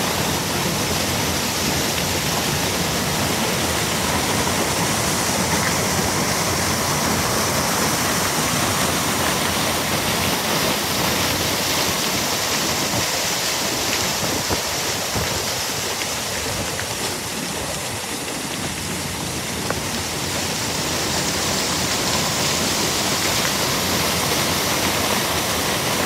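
Small waterfall and the river below it: a steady, loud rush of falling and churning white water, easing slightly for a few seconds about two-thirds of the way through.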